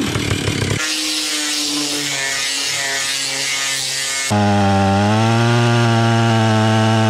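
From almost a second in, an angle grinder's disc grinding the steel chainsaw bar clean, a steady whine over a hiss. About four seconds in it gives way abruptly to a louder Stihl 031AV two-stroke chainsaw running at full throttle in a cut through a log, holding a steady note.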